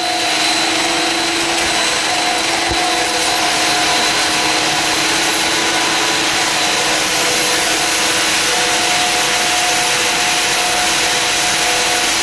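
PVC pelletizing extrusion line running: a loud, steady machine drone, motors and fans whirring, with a few steady whining tones held over a wide hiss.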